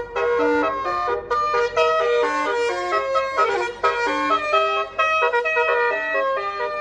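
Telolet basuri multi-tone bus horn playing a quick tune, its notes jumping up and down several times a second.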